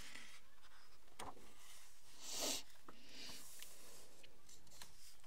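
A page of a large hardcover picture book being turned: a soft paper swish about two and a half seconds in, with light rustling and clicks around it, then a hand smoothing the new page flat.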